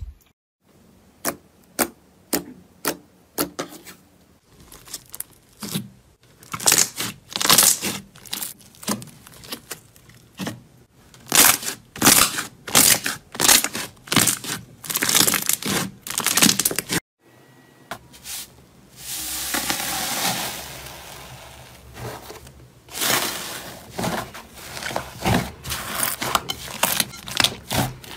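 Slime being pressed and squeezed by hand, giving runs of sharp crackling pops and snaps that grow denser. After a short cut a softer rustling swell follows, then the popping resumes.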